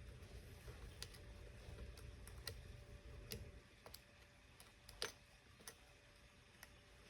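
Faint, irregular small clicks and taps of tools and small parts being handled on a smartphone during reassembly, about a dozen, with the sharpest click about five seconds in.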